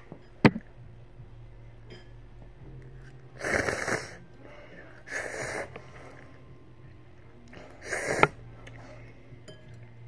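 Three breathy slurps of ramen noodles being sucked up, each lasting under a second. A sharp click comes about half a second in.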